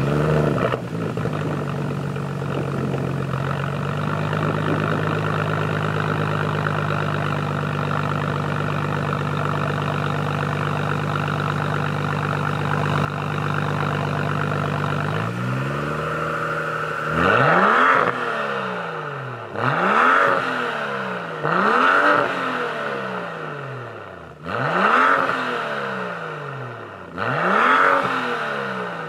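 BMW X6 35i's turbocharged 3.0-litre straight-six through an AC Schnitzer stainless-steel sport rear silencer. It starts up with a brief flare, then settles into a steady idle. In the second half it is revved five times, each rev rising and falling back to idle.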